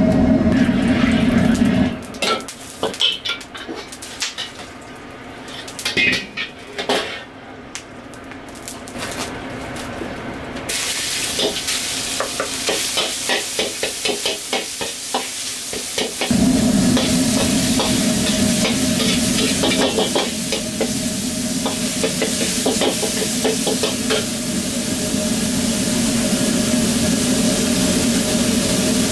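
Minced meat sizzling in hot oil in a wok while a metal ladle stirs and scrapes it, with scattered ladle clinks before the sizzle starts about ten seconds in. A gas wok burner's low roar is heard at the start, drops out about two seconds in, and comes back around sixteen seconds in.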